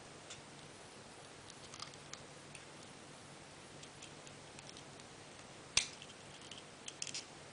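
Plastic parts of a transforming toy robot being handled and snapped together: scattered faint clicks, with one sharp click a little under six seconds in and a few more near the end.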